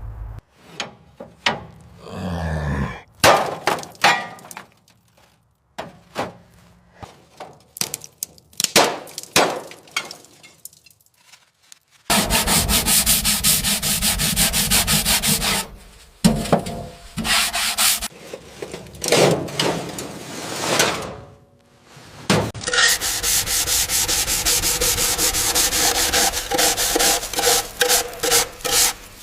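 Hand sanding and scraping on a vehicle being restored: first a string of separate rubbing strokes and knocks, then long runs of rapid, even back-and-forth strokes about twelve seconds in and again from about twenty-three seconds on.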